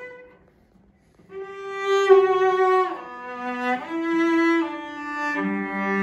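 Czech cello made around 1920, bowed. A held note dies away, and after a short pause a slow phrase of sustained notes follows, with small slides between some of them. Near the end two notes sound together.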